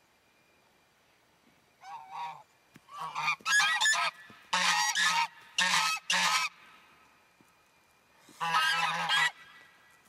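Four domestic geese honking excitedly. The loud calls come in bouts starting about two seconds in, then stop for a moment before a last bout near the end.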